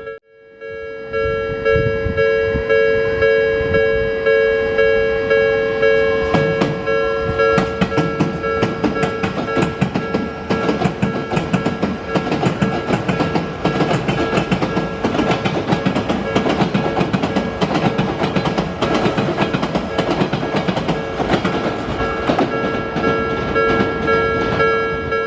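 Odakyu 3000 series ten-car electric train, a set with totally enclosed traction motors, rolling over rail joints in a rapid clatter of wheel clicks. A railway level-crossing warning bell rings steadily with an even pulse the whole time. The clicks grow denser from about eight seconds in.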